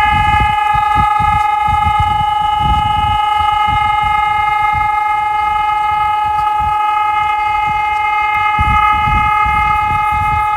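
DIGITEX DSE600S electronic civil-defence siren sounding one steady, unwavering chord-like tone at full volume, with wind buffeting the microphone.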